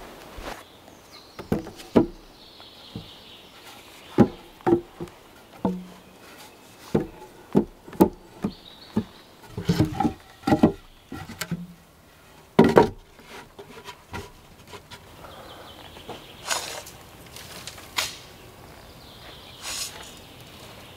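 Boots stepping and stamping on loose sand: a run of irregular dull thuds, with insects buzzing off and on. Near the end come a few longer scrapes, a hand tool working sand on a log roof.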